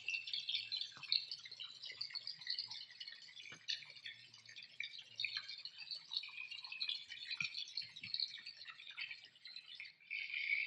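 A jet of water from a homemade 12-volt DC centrifugal pump spattering into a plastic basin: a steady high patter of fine splashes and drips.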